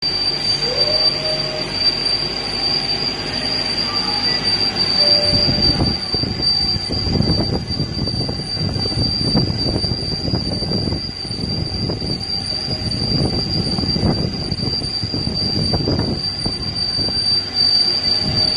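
Boring machine cutting the inside of a seamless tube, with a steady high-pitched squeal over the running machine. From about six seconds in, low rumbling swells come and go every second or two.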